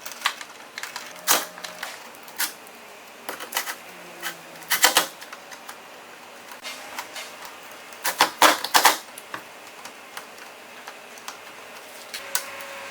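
Irregular sharp clicks and taps of tools and small metal parts handled while wires are connected to alarm terminals, bunched into quick runs about five seconds and eight seconds in.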